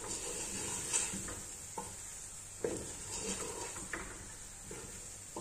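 Wooden spoon stirring chicken and tomato paste in a stainless steel pot, knocking against the pot at irregular moments, over a faint steady sizzle of the paste frying.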